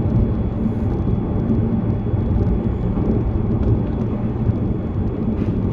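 Cabin running noise of an E657-series limited express Hitachi train travelling at speed: a steady low rumble of wheels on rail and the moving carriage.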